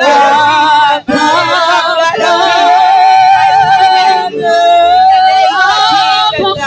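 Worship singing: a voice holds long, wavering notes over sustained backing, with a short break about a second in and another near the middle.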